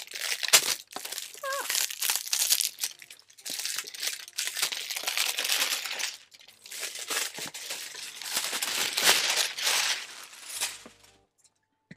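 Packaging crinkling and rustling in irregular bouts as it is handled and pulled off a tin box, stopping about a second before the end.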